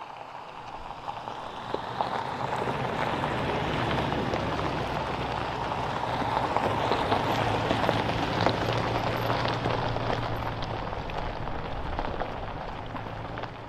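An off-road vehicle driving on a gravel trail: tyres crunching over loose stones with a steady engine hum underneath, building over the first few seconds and then holding.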